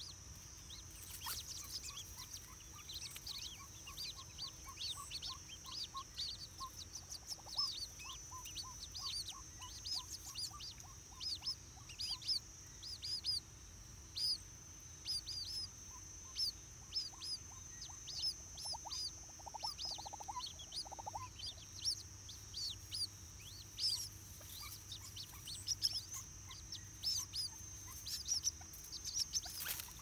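White-breasted waterhen chicks peeping: rapid high-pitched chirps that fall in pitch, several a second, over a steady high hum. A short run of lower notes comes about two-thirds of the way through.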